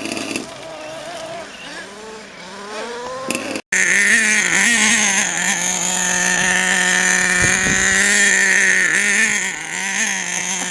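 Nitro RC monster truck's small two-stroke glow engine running, its pitch rising and falling with the throttle, then after a cut about three and a half seconds in, held at a high, steady rev.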